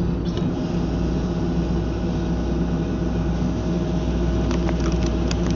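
Tracked excavator's diesel engine running steadily under load, driving a hydraulic ground saw (bucksaw), with a steady whine over the engine's drone. A few short clicks or knocks come near the end.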